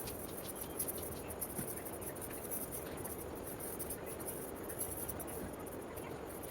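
Oiled hands rubbing and massaging a baby's skin: a soft, steady rubbing.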